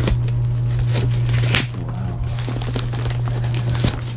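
Plastic sack packaging crinkling and rustling as it is gripped and pulled open by hand, with a few sharper crackles, over a steady low hum.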